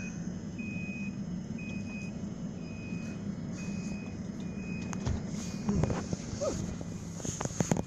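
A tram's warning beeper sounding short, even beeps about once a second over the tram's steady low hum. The beeps stop about four seconds in, and a few sharp clicks and knocks follow near the end.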